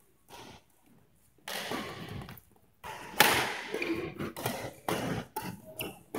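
Badminton doubles rally: rackets striking the shuttlecock in a string of sharp hits, with players' footwork on the hard court. It starts about a second and a half in, and the loudest hit comes near the middle.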